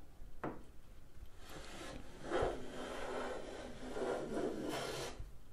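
Fenced rabbet plane cutting a cross-grain rabbet along the edge of a wooden door frame: a short stroke, then two long strokes of about a second and a half each.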